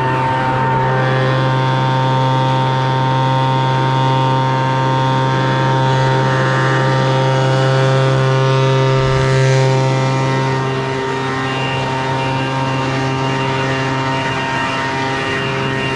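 Ryobi petrol backpack leaf blower running steadily with a loud, even engine note. The engine swells briefly about nine seconds in, then eases slightly.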